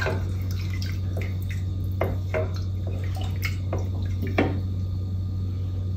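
Stock simmering in a stainless steel saucepan: scattered bubbling plops and light knocks as a wooden spoon moves in the pot, over a steady low hum.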